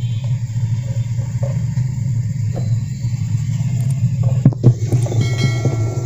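Steady low hum, with a few sharp knocks about four and a half seconds in as a hand handles the washing machine's tub and pulsator shaft, followed by a short high-pitched ring.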